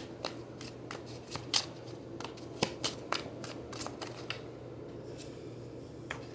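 Tarot cards being handled, shuffled and laid down: a quick run of crisp flicks and taps over the first four seconds, then a single tap near the end.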